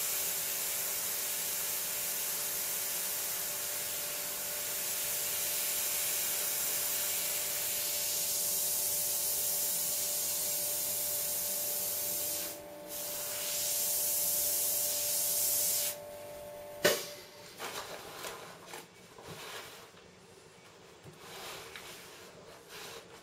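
Airbrush spraying paint with a steady, high air hiss over a faint steady hum, breaking off briefly about twelve seconds in. The hiss stops about sixteen seconds in, a sharp click follows, and then come quieter handling noises as the helmet is moved.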